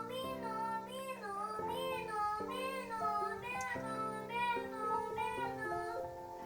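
A song playing: a high voice sings a melody with wavering pitch over held keyboard-like chords that change every second or so.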